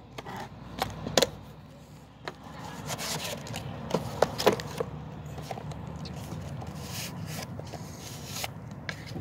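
Sharp clicks and knocks with some scraping as a plastic tool case and tools are handled in a toolbox drawer, a cluster of clicks coming about four seconds in.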